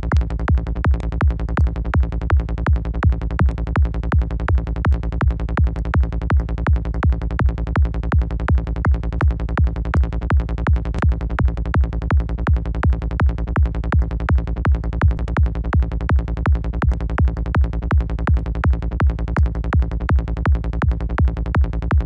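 Psytrance kick and rolling bass loop from the KickNBassGel software synth, in the key of A# at about 165 BPM. The kick hits about three times a second with bass notes between the kicks, steady and heavy in the low end.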